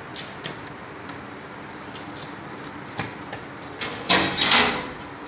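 Metal gate being handled and pulled open, with a few light clicks and then one loud rattling scrape about four seconds in.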